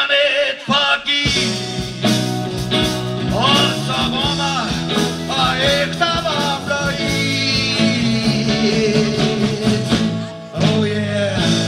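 Live band music: a man sings a gliding melody into a microphone over electric bass, guitar and drums.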